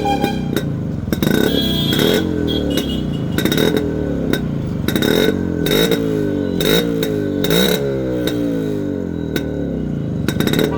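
Motorcycle engine running and being revved, its pitch rising and falling again and again, with sharp clicks over it.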